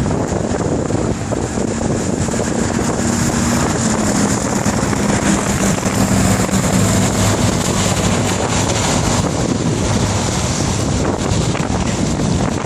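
Wind rushing over the microphone while riding a bicycle, loud and steady, with a low engine hum from motor traffic underneath.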